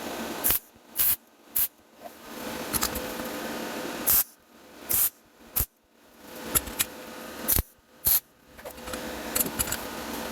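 MIG welder laying short bursts of weld to build a new M8 bolt onto a rusted, broken bolt head, with a crackling hiss that stops and restarts several times.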